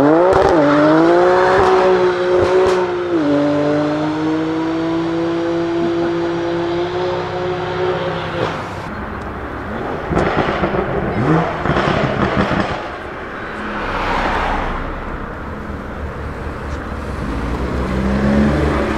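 BMW M car accelerating hard: the engine's pitch climbs steeply, drops once at an upshift about three seconds in, then holds and slowly rises as the car pulls away. After about eight seconds the engine note gives way to a rougher, noisier stretch with several short loud bursts.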